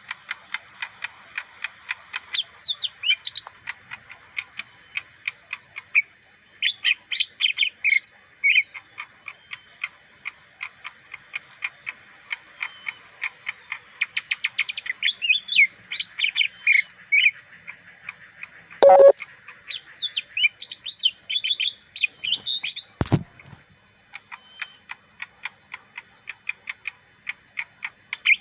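Caged leafbird singing a long, fast run of sharp chirps mixed with warbled phrases. A knock sounds about two-thirds of the way in, and a sharp click follows a few seconds later.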